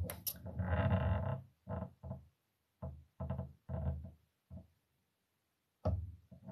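A woman's voice close to the microphone in short broken phrases, with a longer held sound about a second in and a pause near the end.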